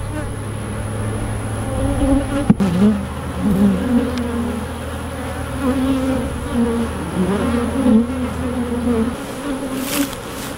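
Honey bees buzzing around an opened hive, with single bees flying close past and their drone wavering up and down in pitch. One sharp click about two and a half seconds in.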